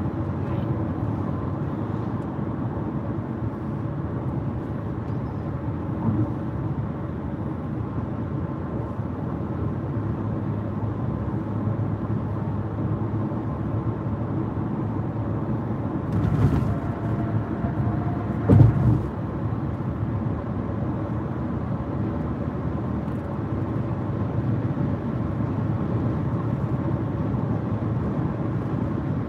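Steady road noise of a car driving at highway speed, heard from inside the cabin: a low rumble of tyres and engine. Two brief thumps, about 16 and 18 seconds in.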